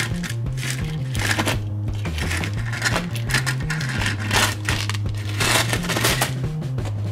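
Small gravel stones crunching and clattering under a die-cast toy off-road truck as it is pushed over a rock and tipped over onto the gravel. Several louder clatters come in the second half. A stepping bass line of background music plays underneath.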